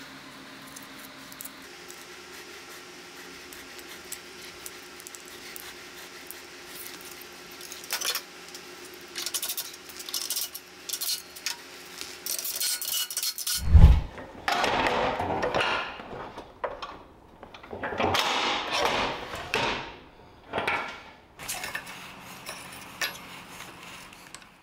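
Small metal hand tools and bolts clinking, scraping and clattering on a steel workbench as engine parts are fitted, quiet and sparse at first and busier in the second half. A single loud thump about 14 seconds in.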